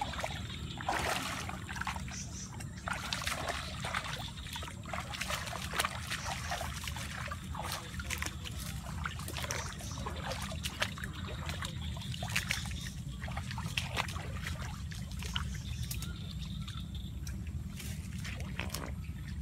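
Water trickling and dripping from a mesh crab trap just lifted out of the water, with a splash about a second in and scattered light clicks and rustles, over a steady low background rumble.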